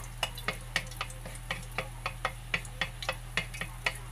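Wooden spatula scraping and tapping against a wok while stirring garlic frying in oil, about four strokes a second, over a steady low hum.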